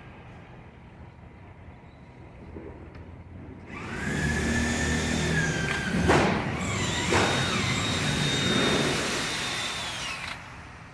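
Low shop rumble, then about four seconds in a loud, steady hissing whine from a machine starts, holding several whining tones that shift a little, and stops about a second before the end.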